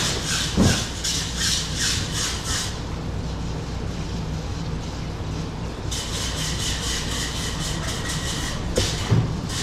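Long knife sawing back and forth through a yellowfin tuna loin, making quick rasping strokes about two or three a second, over a steady low hum. After a pause of a few seconds the rasping starts again, with a thin high squeal in it.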